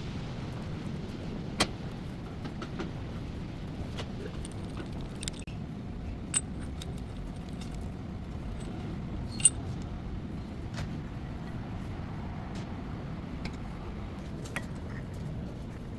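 Hand tools and metal brake parts clinking and tapping a few times, with a few sharper clinks, over a steady low hum.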